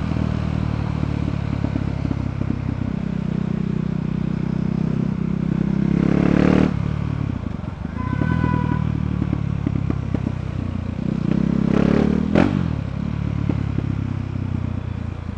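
KTM Duke 390's single-cylinder engine on its stock exhaust, accelerating hard twice in low gear: the revs climb and then drop off sharply, at about six and twelve seconds in, with a sharp crack at each drop.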